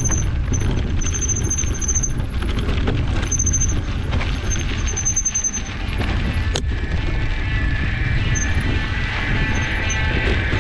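Mountain bike rolling along a dirt trail: wind buffeting the action camera's microphone and tyres rumbling over the dirt, with a thin high-pitched squeal that comes and goes in short bursts. A single sharp click about six and a half seconds in.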